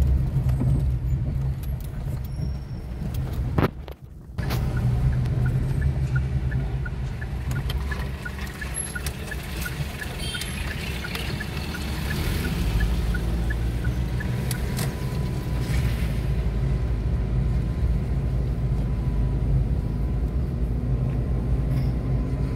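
Car engine and tyre noise heard from inside the cabin while driving. The sound drops out sharply for a moment about four seconds in, and a light, evenly spaced ticking runs for several seconds in the middle.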